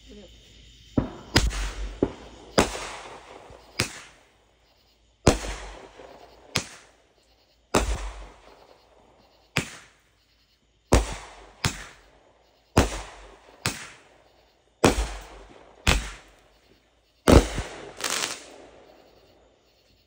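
Multi-shot consumer firework cake firing a rapid series of aerial shots: about sixteen sharp bangs at irregular intervals of roughly a second, each trailing off quickly.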